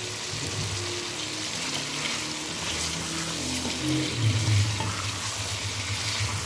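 Chicken pieces and tomato masala sizzling in hot oil in a karahi while a spatula stirs and scrapes them around the pan. This is the bhunai stage of a chicken karahi, fried on medium heat.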